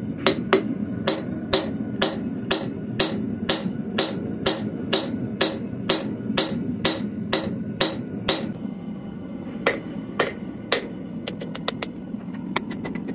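Hand hammer striking a red-hot steel knife blade on an anvil, drawing out the rough bevels: steady blows about two a second, then a few spaced blows and quicker, lighter taps near the end.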